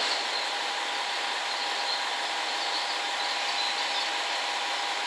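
Container freight train rolling through the station: a steady rush of wheels on rails, with a thin steady whine over it.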